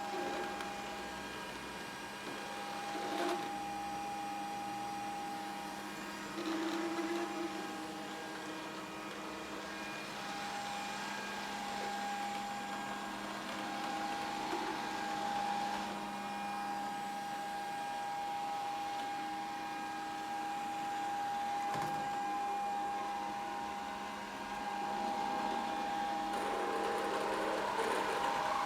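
Grundig VCR 2131 robot vacuum running with a steady motor whine and hum, its pitch holding level, with a few brief knocks.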